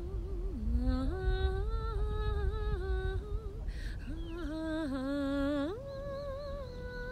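A woman's soprano voice singing unaccompanied: a slow melody of long held notes with vibrato, stepping between notes. There is a short break about three and a half seconds in, and near the end it rises to a higher sustained note.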